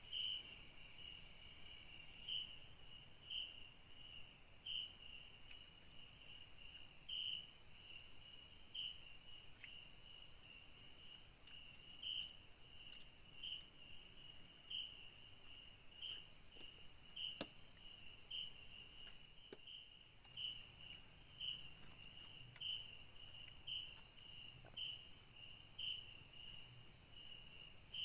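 Night insects calling in the forest: a steady high-pitched buzz with a short chirp repeating roughly once a second. The high buzz drops a little about two seconds in.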